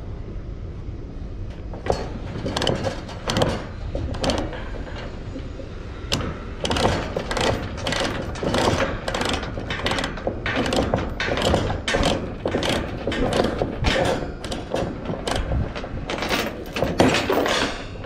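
Steel ratchet binder being cranked to tighten a load chain: the pawl clicks in quick repeated strokes, mixed with steel chain links clanking. The clicking starts about two seconds in and comes fast and steady from about six seconds on.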